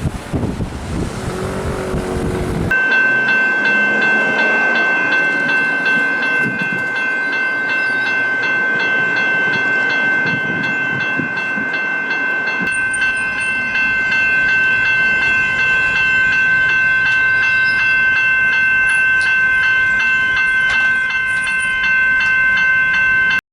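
Level crossing warning bell ringing steadily, a set of high tones that starts about three seconds in after a short stretch of rushing noise. Train noise runs underneath.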